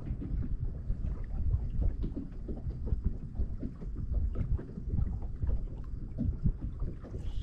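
Wind buffeting the microphone in an uneven, gusty rumble, with small waves slapping against a boat hull.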